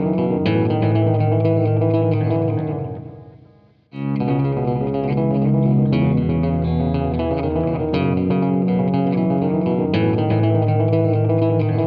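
Background music led by guitar and bass guitar. It fades out about three seconds in and starts again a moment later.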